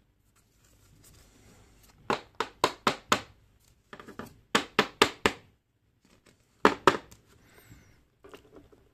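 Sharp plastic taps and clicks from a sleeved trading card being worked into a rigid clear plastic top loader, in three quick runs of taps with light rustling between.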